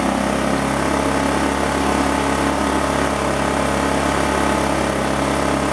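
Harbor Freight Predator inverter generator's small engine running steadily at an even speed while its three-way fuel valve is switched from the main tank over to a remote fuel tank.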